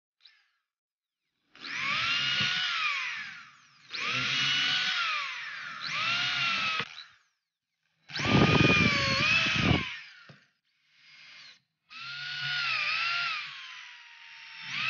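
Electric drill running in about six short bursts, its whine rising as it speeds up and falling as it slows each time. The burst about eight seconds in is the loudest and rougher, with a low grinding under the whine.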